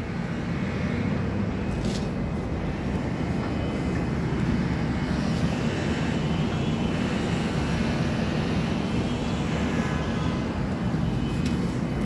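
Steady low rumble of background noise with no distinct event.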